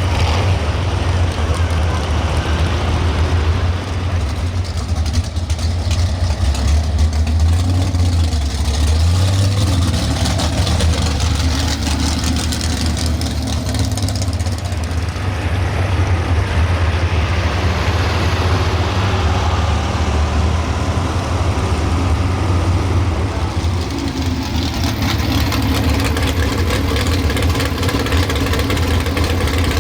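Big pulling-truck engine running loud and fairly steady, with no clear rise or fall in pitch.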